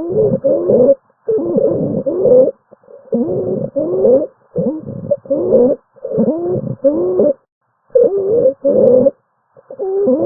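Stridor lung sound: a string of noisy, pitched breaths with gliding pitch, roughly one a second with short pauses between. It is the sign of a narrowed upper airway, as in airway obstruction, croup or epiglottitis, and calls for quick medical intervention.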